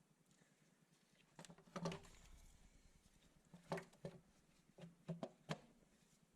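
A few light, irregular clicks and knocks: a short cluster, then single taps, then several close together near the end.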